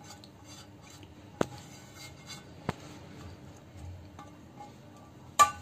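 A pan and spatula knocking against a mixing bowl while a cooked onion and capsicum mixture is scraped in: a few sharp clicks, the loudest near the end, over faint background music.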